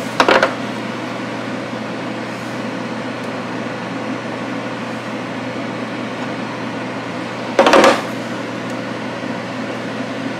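Steady hum of a small electric fan, broken by two short knocks from hands working the welder's wire-feed mechanism: a light one right at the start and a louder one about three quarters of the way through.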